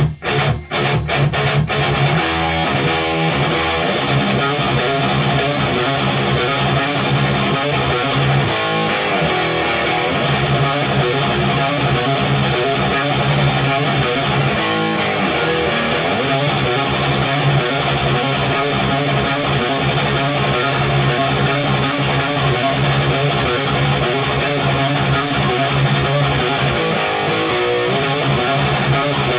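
Heavily distorted electric guitar played through a Randall Diavlo RD20 tube amp on its high-gain 'Fortin boost' setting, with the amp turned up loud. A metal riff opens with a few short, choked stabs in the first second, then runs on as continuous chugging riffing.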